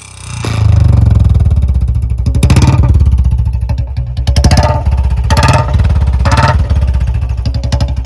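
Royal Enfield Standard 350 BS6 single-cylinder engine running loud through a C bend pipe and a chhota Punjab (mini Punjab) silencer, giving a deep, rapid exhaust thump. The throttle is blipped four times, from about two and a half seconds in.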